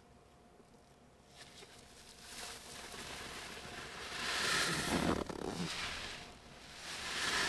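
A soaked sponge full of blue Ty-D-Bol toilet-cleaner solution being squeezed, squelching wetly as the liquid runs out. The squeezing builds from a couple of seconds in to a first slow swell about halfway through, then a second swell starts near the end.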